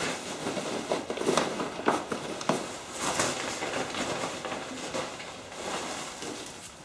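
Rustling of loose foam packing peanuts with scattered light clicks and knocks, as paint cans are dug out of a shipping box.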